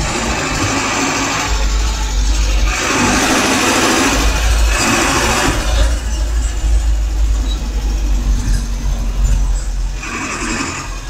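Road traffic heard from inside a moving vehicle: a steady low engine rumble, with louder rushes of traffic noise about 3 to 5 seconds in and again near the end.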